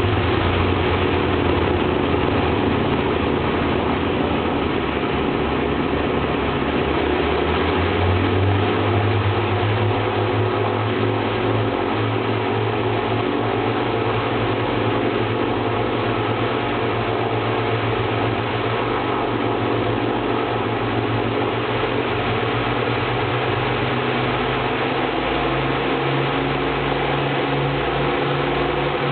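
The Avro Lancaster's four Rolls-Royce Merlin V12 engines running, a loud steady drone heard from inside the fuselage. The low engine tones shift in pitch about eight seconds in.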